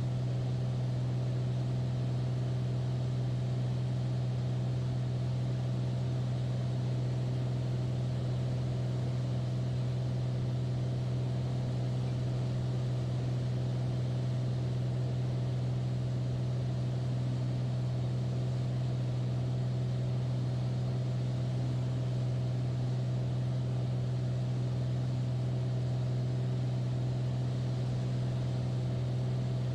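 Beechcraft A36 Bonanza's single piston engine and propeller droning steadily in flight, heard inside the cabin as a constant low hum with a hiss of air noise.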